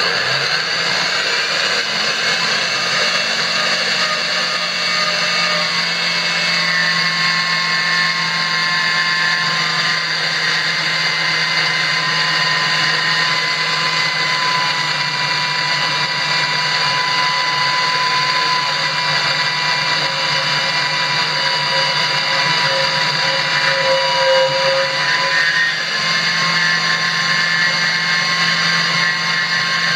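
Klutch 3 x 4 inch benchtop metal-cutting band saw with its 1 1/3 HP motor, running steadily and sawing dry through a 3 x 1.25 inch aluminum bar. The motor and blade make a loud, even whine with steady high tones.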